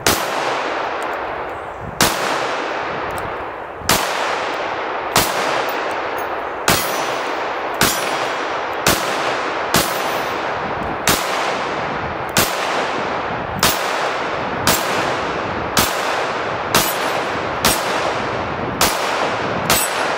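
Smith & Wesson .22 WMR semi-automatic pistol firing CCI Maxi-Mag rounds in a steady string of about seventeen shots, roughly one a second, each followed by an echoing tail. Steel plate targets clang when hit.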